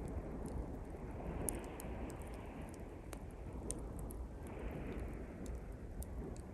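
Small campfire of thin pine twigs crackling with scattered sharp pops, over the low rumble of surf and two waves washing in and drawing back.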